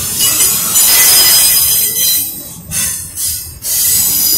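Freight train of double-stacked container well cars passing close by: steel wheels squealing and hissing on the rail in a loud, high-pitched din, which dips briefly twice near the end.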